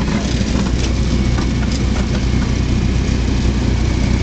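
Light aircraft's piston engine running steadily, a loud low drone heard from inside the cabin, with rushing noise over it.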